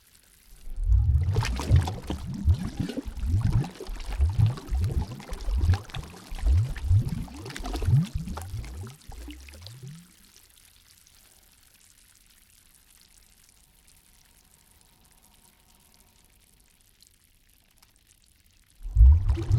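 Water gurgling and sloshing in quick, irregular gulps for about nine seconds, then dropping to a faint hush, and starting again near the end.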